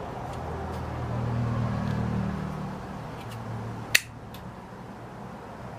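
A single sharp click about four seconds in as the liner-lock folding knife is handled and its blade is snapped, over a low rumble that swells and then fades during the first three seconds.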